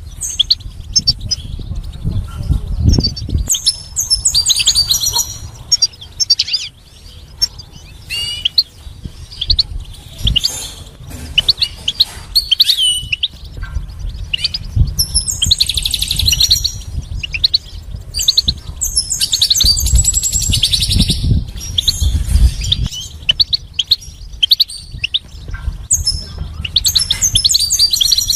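European goldfinch singing: rapid, high-pitched twittering song with trills and buzzy notes, delivered in phrases of a few seconds separated by short pauses, over a low rumble.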